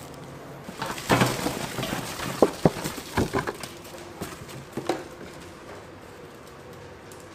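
A run of knocks and clatters, some with short metallic rings, from a stainless steel food pan being handled on a work table, mostly between about one and five seconds in.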